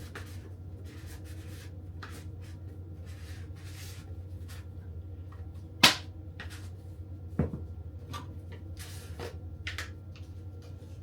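Kitchen handling noises as seasoning containers and a spoon are handled: light rustles and clicks, with two sharp clacks about six and seven and a half seconds in, over a steady low hum.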